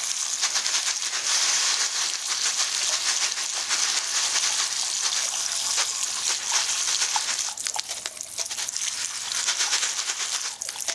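Cold water from a tap running through a plastic sieve of lead airgun pellets: a steady splashing hiss with many small ticks and rattles from the pellets, rinsing the detergent off them.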